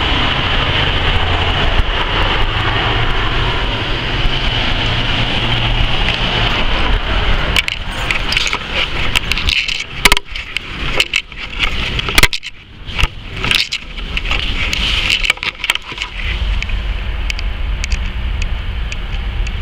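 Street traffic noise picked up on a handheld camera's microphone, broken in the middle by a stretch of irregular knocks and clattering from the camera being handled and moved.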